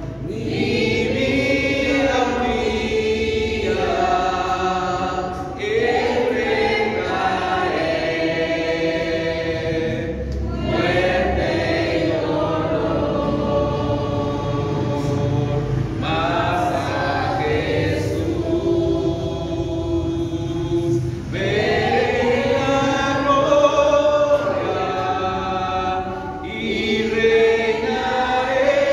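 Voices singing a slow hymn in Spanish, unaccompanied. The phrases are made of long held notes, with a short break about every five seconds.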